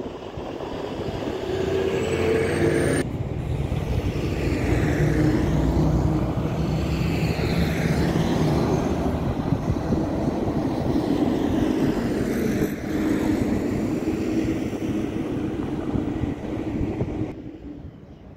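Airliner jet engines: a loud, steady rumble with a whine whose pitch slowly shifts, cutting off abruptly near the end.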